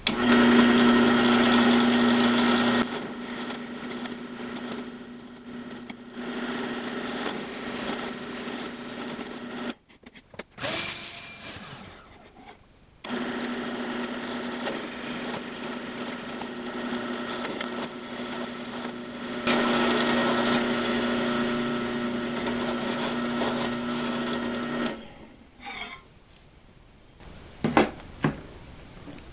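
Benchtop drill press running, drilling 17/64-inch tap holes for an 8 mm tap through an aluminium plate. The motor hums steadily and is louder at the start and again from about two-thirds in. It stops about ten seconds in and starts again about three seconds later, then stops near the end, followed by a couple of knocks.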